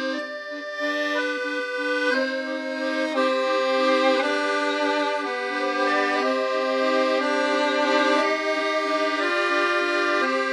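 Background music: an accordion playing a melody over held chords, with no drums or bass.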